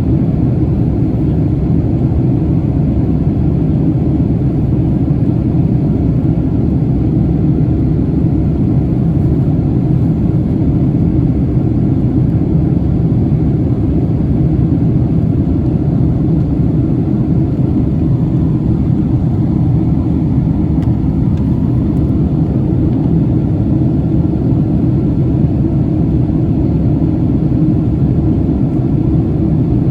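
Jet airliner cabin noise: a loud, steady low rumble of engines and airflow, unchanging throughout.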